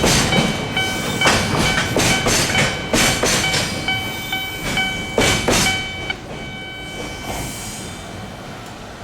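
Japanese level-crossing warning bell ringing in a repeating electronic clang, stopping about six seconds in. Under it, a freight train's container wagons roll past with sharp wheel clacks over the rail joints, fading as the train draws away.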